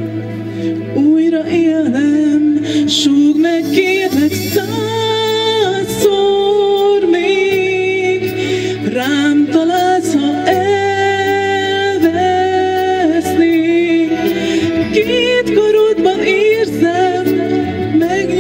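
A woman singing a slow song into a handheld microphone over backing music, holding long notes that waver in pitch.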